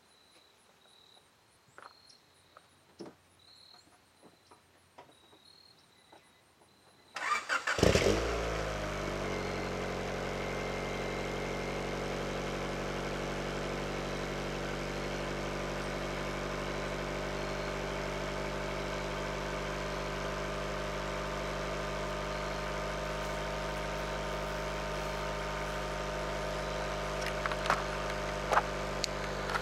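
A 1992 Honda Prelude's F22A 2.2-litre four-cylinder engine is cold-started, heard from behind at the exhaust. About seven seconds in the starter cranks briefly, the engine catches with a short rev flare, and then it settles into a steady idle.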